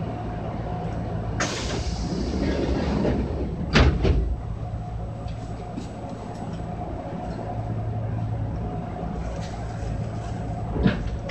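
Running sound inside a Kintetsu 6413-series electric train carriage: a steady hum from the running gear with wheel-on-rail noise. A rush of noise lasting about two seconds starts about a second in, a sharp clack follows around four seconds in, and a few knocks come near the end.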